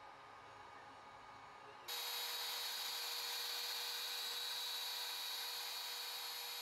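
A Creality Ender-3 Pro 3D printer running faintly, a steady low whine, then about two seconds in an abrupt cut to a CNC router spindle milling aluminium with an end mill: a loud, steady high-pitched whine and cutting hiss.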